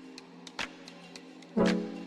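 Background music with a steady beat. Light ticking percussion runs throughout, and a loud pitched hit with a ringing chord lands about a second and a half in.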